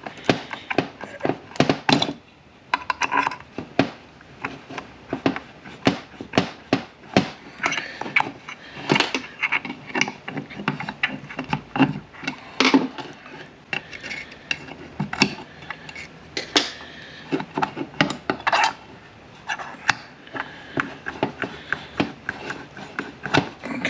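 Irregular metallic clinks and knocks of hand tools against the steel parts of a manual transmission shift tower, as a stuck part is worked loose.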